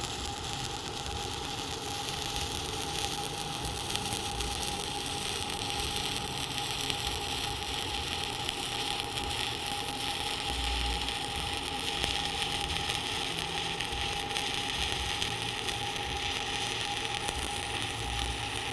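Stick (SMAW) welding arc burning a 7018 electrode at about 90 amps: a steady, even crackle and sizzle as the cap pass on a steel fillet joint is laid. A faint steady tone runs underneath.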